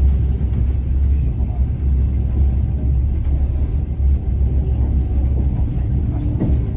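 Moving passenger train heard from inside the carriage: a steady, deep rumble of the wheels and running gear on the rails, with a faint clack of the wheels near the end.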